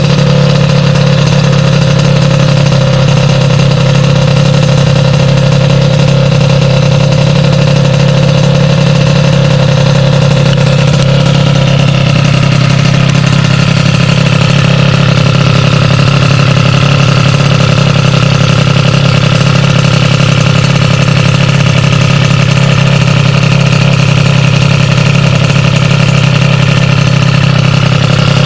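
Sym DD50 scooter's two-stroke engine, with a Polini Corsa Mini build, idling steadily and loudly after its carburettor jetting has been set.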